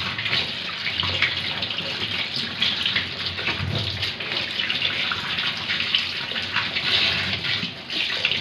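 Kitchen tap running steadily into a stainless-steel sink, the stream splashing over tomatoes and oranges as they are rubbed and turned by hand under it.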